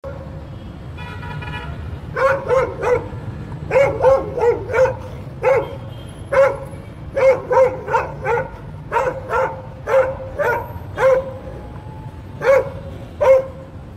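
Bakarwal dog barking in quick runs of two to four barks, again and again, starting about two seconds in. A car horn sounds briefly just before the barking starts, over a steady traffic rumble.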